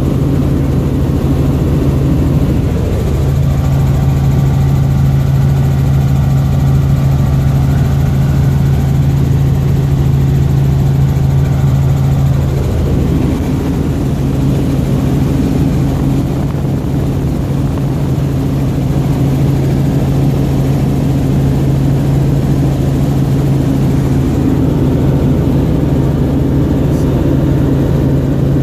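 Helicopter in flight heard from inside the cabin: a loud, steady drone of engine and rotor. A low hum grows stronger from about three seconds in and eases off after about thirteen seconds.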